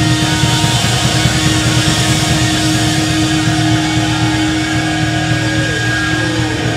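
A live rock band playing loud: distorted electric guitars, bass guitar and a drum kit with cymbals, with one note held steadily through most of it.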